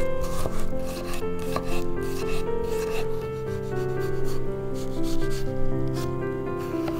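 Repeated rough rubbing and scraping strokes of hand food preparation, over background music with held notes.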